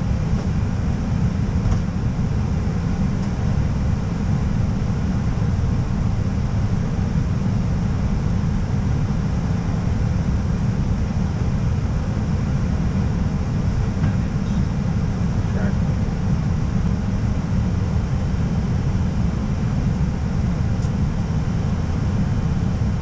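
Steady low rumble of airflow and engine noise inside an Airbus A320 cockpit in flight, unchanging throughout.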